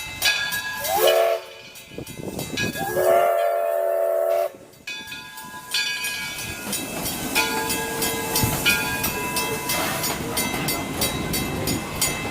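Steam whistle of the locomotive Edison: a short blast about a second in, then a longer blast of about a second and a half. After that the locomotive runs on with steam hiss and regular exhaust beats.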